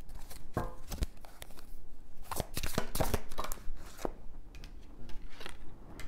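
Tarot cards being shuffled and handled by hand: a series of quick card snaps and taps, thickest about two to three and a half seconds in.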